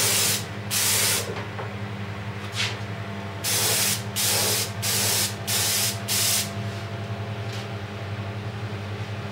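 Gravity-feed compressed-air spray gun spraying glaze onto a pot in short bursts, seven or so of about half a second each, with a steady low hum underneath.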